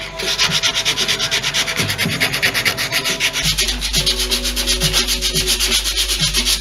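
Rapid back-and-forth hand strokes smoothing a carved white oak door pull, a rasping rub repeated about six times a second.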